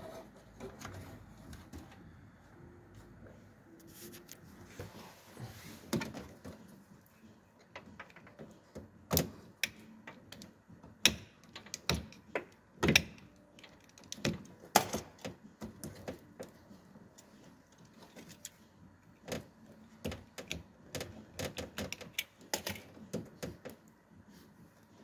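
Hands handling the rear door wiring and rubber cable conduit of a VW Caddy van: irregular clicks, taps and knocks of plastic and rubber, thickest in the middle, with a brief scraping rustle about five seconds in.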